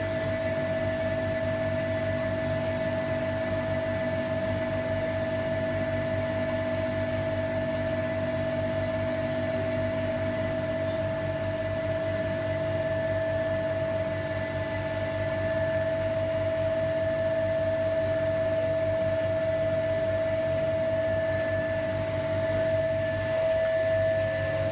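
Vacuum pump running steadily, holding vacuum on a resin infusion mould. It gives a constant hum with a steady high whine.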